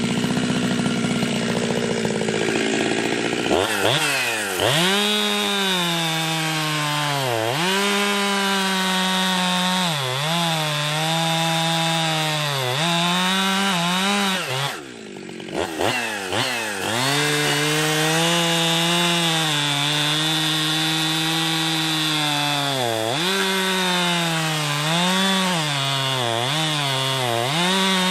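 Ported Jonsered 2071/2072 two-stroke chainsaw at full throttle cutting wood, its engine pitch dipping again and again as the chain loads in the cut. About halfway through it drops off briefly, then revs back up and goes back into the wood.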